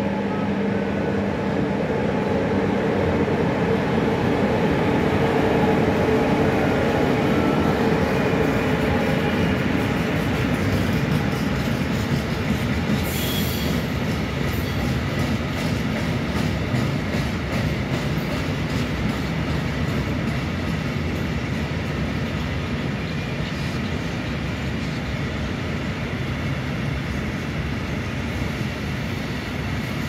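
HŽ class 1141 electric locomotive passing with a steady hum, loudest several seconds in. Then a long train of empty Eas open freight wagons rolls by, wheels clicking over rail joints, with a brief high wheel squeal about a third of the way through.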